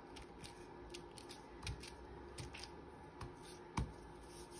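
Quiet handling of paper and crochet trim: irregular light clicks and rustles as the trim is pressed down onto the envelope, with one sharper click near the end.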